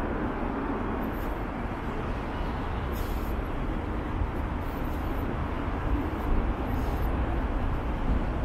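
Steady city road traffic noise from cars passing, with faint brief high ticks every second or two.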